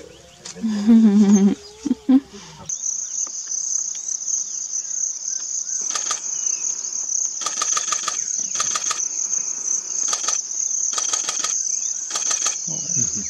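Insects, cicadas or crickets, droning steadily at a high pitch, with short louder pulsing bursts several times. Before the drone begins, in the first two seconds, there are a few loud low calls.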